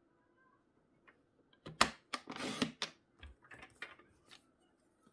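Designer paper being cut and handled: a sharp click, a short scratchy cut lasting under a second, then several light clicks and rustles of paper.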